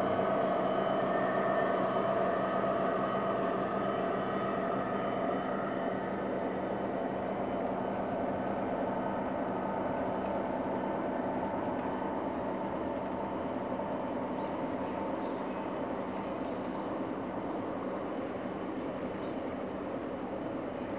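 G scale model freight train, hauled by a pair of USA Trains SD70MAC locomotives, rolling steadily along garden track: a continuous hum and rumble of wheels on rail that slowly fades.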